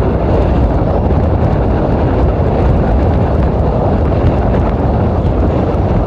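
Wind buffeting the microphone of a camera mounted on the outside of a moving car, a steady loud rumble mixed with the car's road noise.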